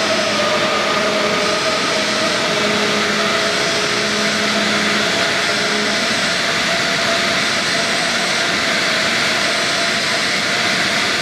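Aircraft elevator machinery of a helicopter destroyer running steadily as the large deck-lift platform moves, a loud, even mechanical rushing noise with a few faint steady tones in it.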